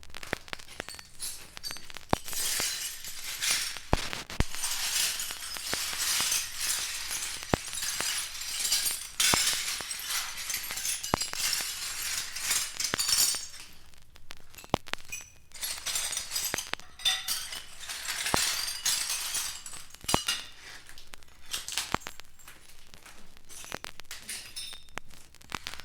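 Glass clinking and tinkling: a dense run of small, sharp, high-pitched clinks, thinning out for a moment now and then.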